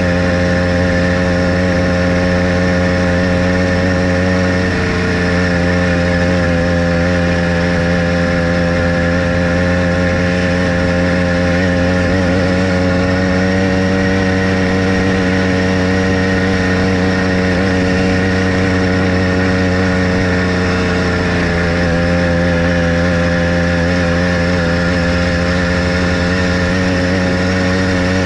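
Motorized bicycle's small engine running steadily while riding, its pitch holding nearly constant with only slight changes in speed.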